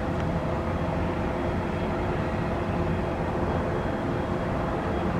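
Cessna 208B Grand Caravan's Pratt & Whitney Canada PT6 turboprop running at taxi power: a steady drone with a faint high whine over it.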